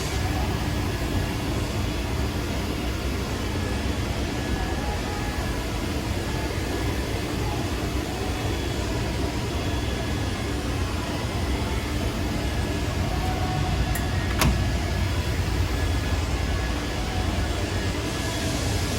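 Steady machine running noise, a low hum with faint steady whine tones, as of the DMG Mori Seiki NHX4000 horizontal machining center under power. Two sharp clicks come close together about fourteen seconds in.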